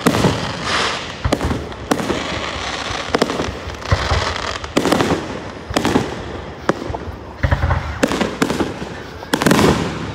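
Aerial fireworks shells bursting overhead: about a dozen sharp bangs at uneven intervals, each trailing off in an echo.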